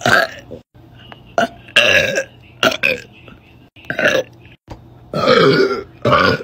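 A young woman burping on command, about eight burps one after another; the longest and loudest comes about five seconds in.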